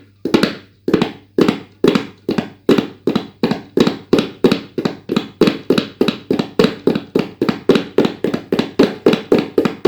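Tabla played with quick kedete / ke-te-te hand strokes in a steady galloping rhythm that imitates a running horse's hoofbeats. The strokes come in small groups about twice a second.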